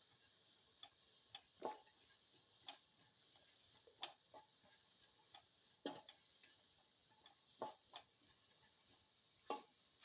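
Spatula tapping and scraping against a pan while vegetables are sautéed: about a dozen sharp clicks at irregular spacing, over a faint steady hiss.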